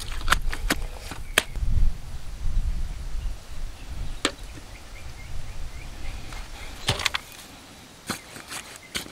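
Low, uneven rumbling buffeting on the microphone, with a scattering of sharp clicks and taps as a level is held against a wooden post and a metal rod is worked into wet concrete at its base. The rumble drops away about seven seconds in.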